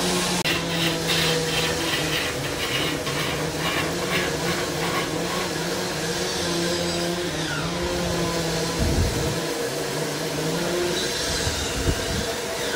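Large wood lathe spinning a long wood blank, its motor humming steadily while a long hand-held steel scraper cuts the wood with a rasping scrape that pulses in quick strokes for the first several seconds. A dull low bump comes about nine seconds in.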